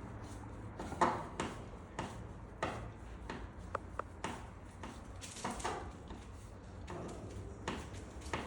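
Irregular small clicks, knocks and rustles of hands handling lamp parts and screws during assembly, over a steady low hum.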